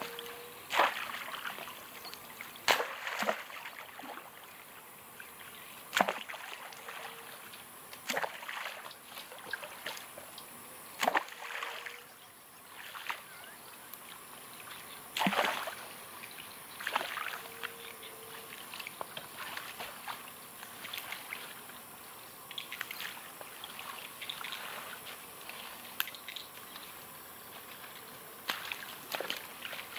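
Water sloshing and splashing in a river, with sharp knocks every few seconds.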